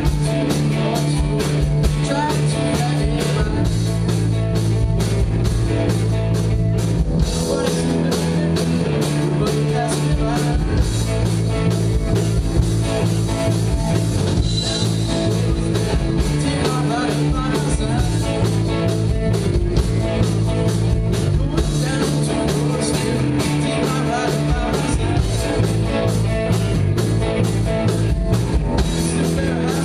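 Live rock band playing electric guitars and drums, the low notes held under a steady beat of cymbal strikes.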